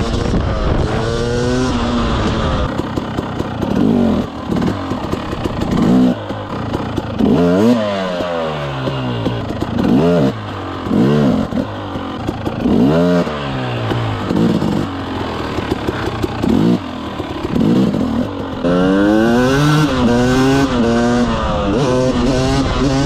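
Motorcycle engine revved hard again and again, its pitch rising and dropping off in quick sweeps, then accelerating through several gears in rising steps near the end.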